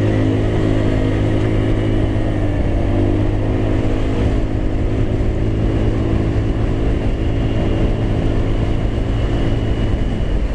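Motorstar Easyride 150N scooter's stock 150 cc single-cylinder engine, still in its break-in period, running steadily under load on an uphill ride; its pitch dips slightly about three seconds in. It climbs smoothly, the engine not straining.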